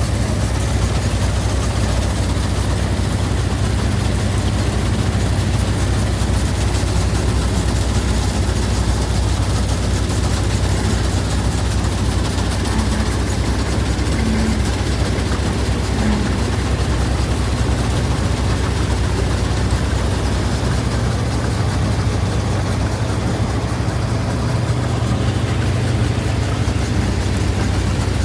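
Heavy diesel engine of a combine harvester running steadily, with an even, unbroken hum and the rushing noise of the machine working.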